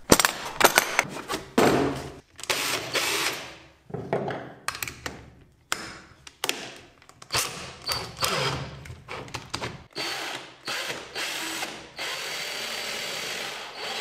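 A run of sharp clicks and clatters from handling a tool case's metal latch and tightening an adjustable circle hole cutter into a cordless drill's keyless chuck, with ratcheting clicks. About twelve seconds in, the cordless drill starts and runs steadily with the circle cutter fitted.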